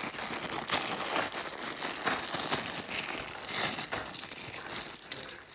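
50p coins clinking against each other in the hand in a busy run of sharp clinks, with a plastic coin bag crinkling.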